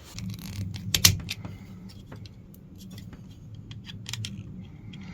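Small hard parts being handled: irregular light clicks and metallic rattles, with one loud click about a second in, over a low steady rumble.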